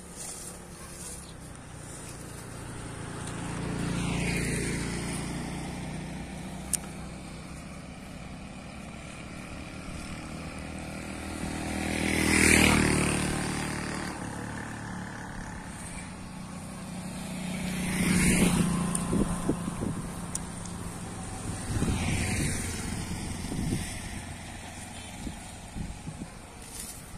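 Road traffic passing by: four vehicles go past one after another, each swelling and fading with a falling pitch as it passes, the loudest about halfway through.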